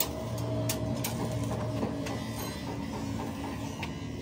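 A steady mechanical hum with a few sharp metallic clicks, the loudest near the start, as engine parts are handled and fitted into the block.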